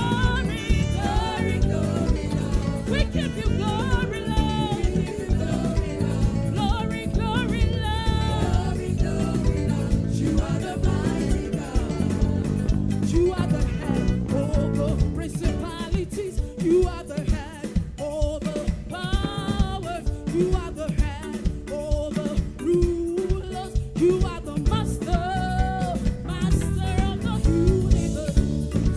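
Live praise music from a church choir and band: a drum kit and guitar playing an upbeat groove under singing voices.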